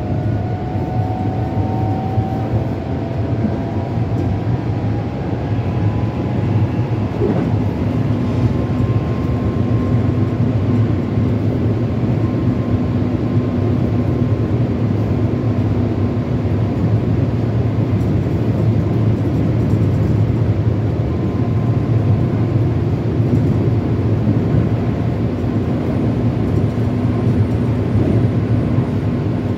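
Keihan 7000 series electric train with a Toyo IGBT-VVVF inverter, heard from inside the car: the inverter's whine rises in pitch as the train accelerates at the start, then gives way to a steady running rumble of wheels on rail.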